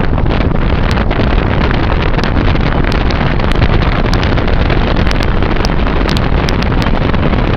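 Wind buffeting the microphone inside a moving car, over steady road noise, with scattered small crackles.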